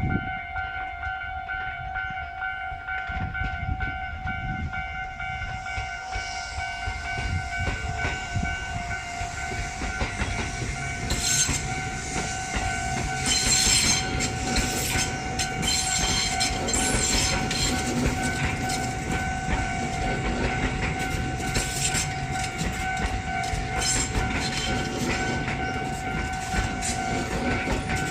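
Japanese level-crossing warning bell ringing steadily while a Tobu 10000 series electric train rolls slowly over the crossing into the station. The train's rumble builds from about six seconds in, and from about eleven seconds its wheels clack repeatedly over the rail joints.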